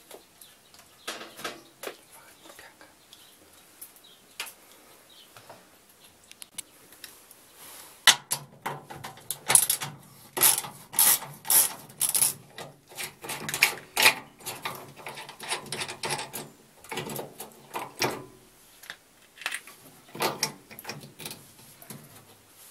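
Ratchet wrench clicking in quick runs as a transport-lock bolt is undone on a washing machine, with a few scattered handling clicks at first; the clicking turns loud and dense about a third of the way in, then thins out near the end.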